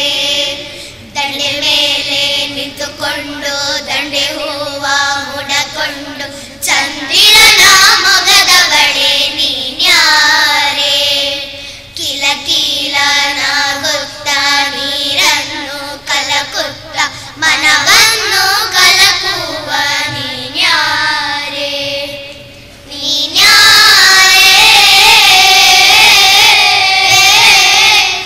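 A group of children singing in chorus into stage microphones, in phrases of a few seconds each, ending on a loud long held note for the last few seconds.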